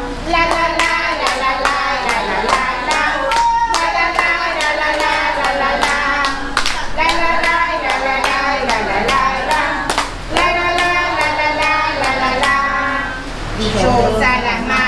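Hands clapping a steady beat along with a song's music and singing.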